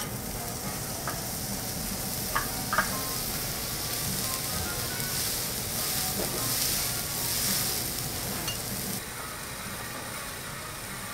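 Thick Matsusaka sirloin steak sizzling as it sears on a dry, oil-free teppanyaki griddle, a steady hiss that swells for a few seconds mid-way. Two sharp metal clinks about two and a half seconds in.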